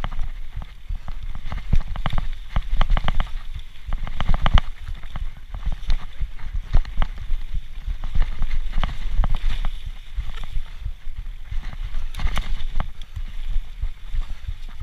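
Specialized Turbo Levo electric mountain bike descending a rough, muddy forest trail at speed. Dense, irregular knocks and rattles come from the bike over ruts and roots, over a steady low rumble.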